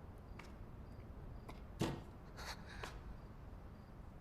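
A few faint, scattered clicks and taps over a quiet background, the clearest one a little under two seconds in.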